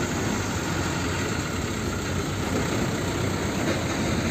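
Diesel engine of a Hino Dutro Pertamina fuel tank truck running steadily, with an even low hum.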